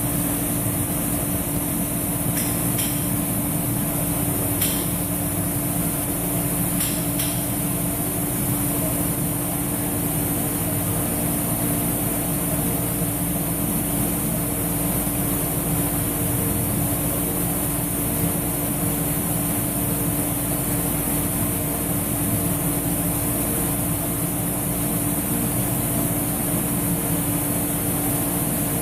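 Mori Seiki NH5000 horizontal machining centre waveform-milling P110 steel with a half-inch 5-flute carbide end mill: a steady cutting noise with a constant tone and a high hiss over it.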